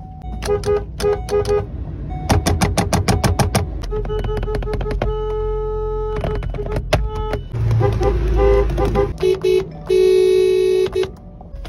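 Car horns honking: a few short toots, then a quick run of about ten rapid beeps, then longer held blasts, the loudest one near the end.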